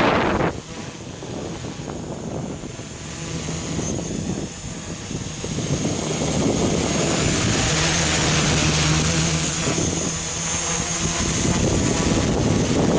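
FPV quadcopter hovering hands-off in altitude- and position-hold mode, its motors and propellers buzzing steadily.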